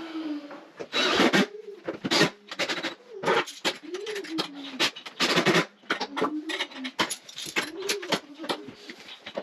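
Clamps and tools knocking and scraping against wooden vanity cabinets in a run of short knocks and rustles, while the cabinets are clamped together. Under it a low tone rises and falls again and again.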